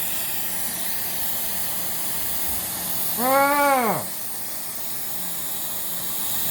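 Steady hiss, with one short pained groan from a man about three seconds in, rising and then falling sharply in pitch: a reaction to pain during a laser skin treatment.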